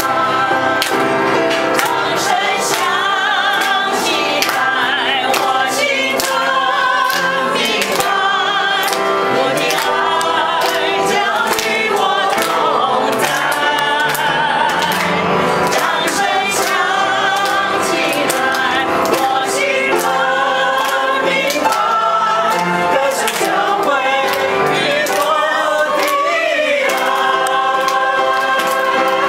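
A group of people singing together in chorus, clapping their hands along in time.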